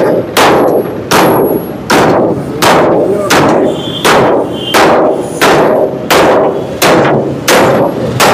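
A heavy steel spanner hammering the sealed lock on a truck's steel cargo door: about a dozen sharp, ringing metal-on-metal blows at an even pace of about one and a half a second. The blows are an attempt to break open a seal that will not give.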